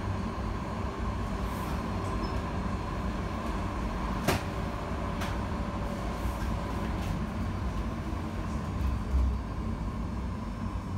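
Tram running between stops, heard from inside the car: a steady rumble of the wheels on the rails with a faint steady tone, a sharp click about four seconds in, a lighter one a second later, and a low thump near the end.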